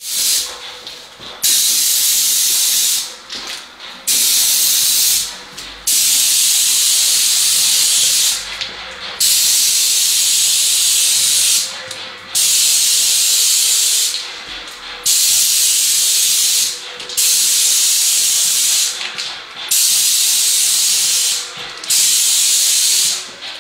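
Paint spray gun spraying skirting board: a loud hiss in repeated bursts of a couple of seconds each, cutting off briefly between passes as the trigger is released.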